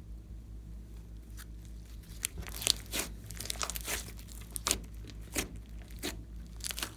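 Slime worked by hand, giving irregular sharp crackles and crunchy pops that grow denser after the first couple of seconds.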